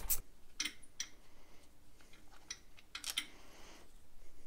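A few faint, separate clicks and light clinks of small metal parts and tools being handled during engine teardown work.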